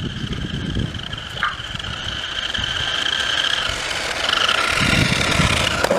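Small electric motor of a toy remote-control car whining steadily as the car drives, its pitch shifting about four seconds in, over a low rumble.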